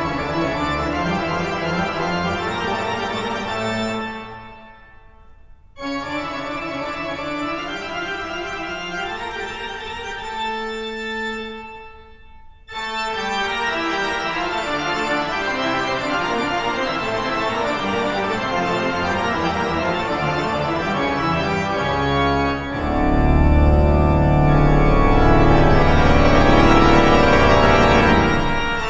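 Background music of sustained keyboard chords, dropping away briefly twice and turning louder with a heavy bass line near the end.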